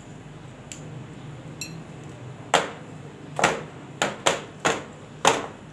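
Metal springform cake pan full of batter being tapped down to settle the batter and release trapped air bubbles: six sharp knocks, starting about two and a half seconds in and coming irregularly, roughly two a second.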